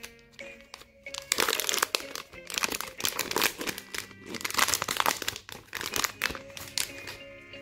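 A Milka chocolate bar's wrapper crinkling in repeated bursts as it is peeled open by hand, starting about a second in and dying away near the end.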